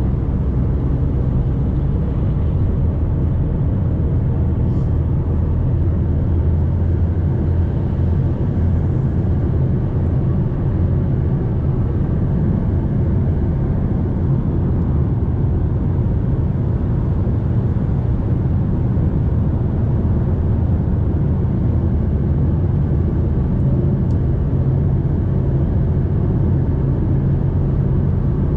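Fiat Toro Volcano pickup driving at a steady highway cruise: an even low drone of its turbodiesel engine and tyre and road noise, holding constant without any change in speed or revs.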